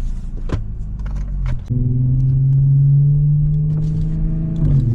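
Audi B8 S4's supercharged 3.0 V6 engine pulling under acceleration, its tone creeping up in pitch and then dropping briefly near the end at a gear change, after a low rumble with a few clicks in the first second and a half. It runs smoothly with new spark plugs, the multi-cylinder misfire gone.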